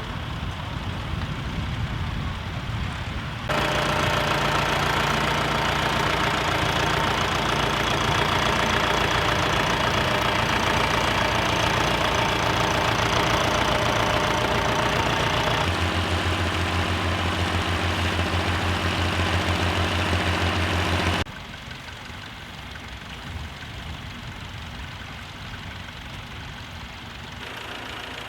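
Classic tractor engines running steadily under load. The sound changes abruptly several times, loudest in the middle stretch.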